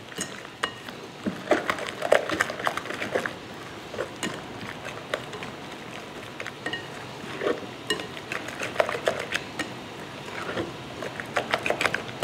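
A wire whisk stirring raw chicken breast pieces through a wet egg-white and starch marinade in a glass bowl, giving irregular clinks and taps of metal against glass, some briefly ringing.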